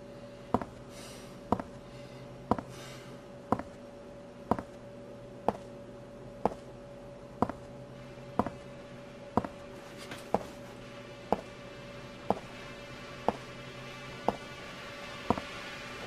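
Horror soundtrack: a sharp tick or knock repeating evenly about once a second over a steady low hum with a few held tones. A hiss swells up in the last few seconds.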